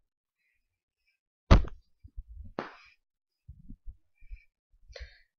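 Handling noise from a plush toy being pushed against the camera: one sharp thunk about a second and a half in, then a brief rustle and several soft, dull thumps.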